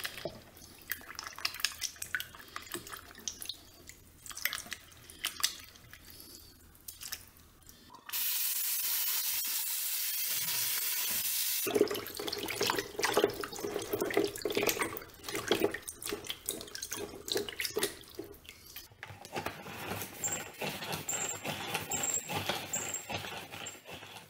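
Hands swishing and shaking vegetables in a salad-spinner bowl full of water in a sink, with irregular splashing. About eight seconds in, a tap runs steadily for a few seconds, then the splashing and rinsing go on.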